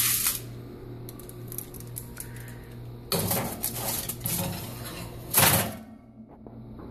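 A foil-lined baking pan being put into an electric oven: short bursts of metal scraping and clatter against the oven rack, the loudest about five and a half seconds in, over a steady low hum.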